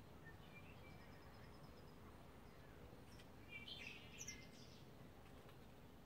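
Small songbirds chirping faintly over low background noise, with a brief, louder burst of twittering notes about three and a half seconds in.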